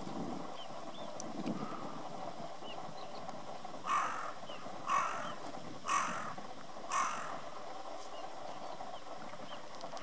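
Carrion crow cawing four times, about once a second, a few seconds in.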